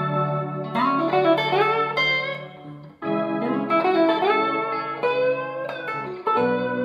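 Telecaster-style partcaster electric guitar played clean through a Fender Excelsior tube amp: blues licks with notes bent upward over ringing sustained notes, in two phrases, the second starting about three seconds in, with a fresh held note near the end.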